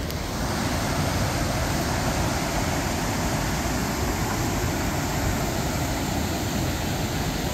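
Steady rush of water pouring over a low concrete spillway in a road culvert.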